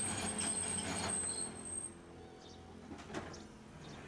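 Tosaden streetcar running, with a hum and a high whine over rolling noise that fades about one and a half seconds in. It leaves a quieter stretch with a few faint short squeaks.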